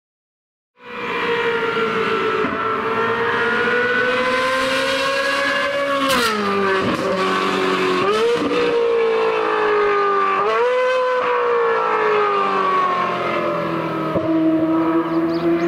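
Ferrari 458 Italia's flat-plane V8 through an aftermarket exhaust, a loud high-pitched wail under hard acceleration, starting about a second in. Three quick upshifts make the pitch drop sharply and climb again.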